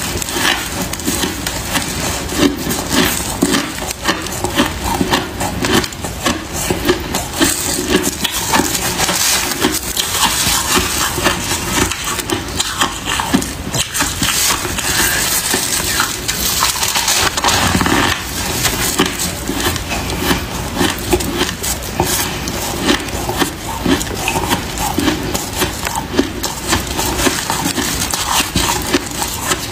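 Freezer frost crunching in a dense, continuous run of crackles as gloved hands squeeze and pack it into a lump and it is chewed.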